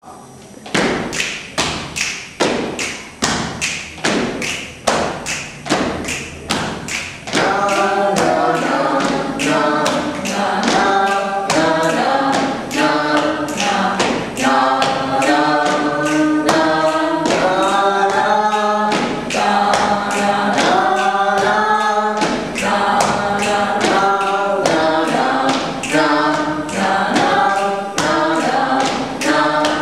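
Group body percussion: hand claps and pats on the chest in a steady beat. About seven seconds in, the group starts singing a melody together over the continuing body percussion.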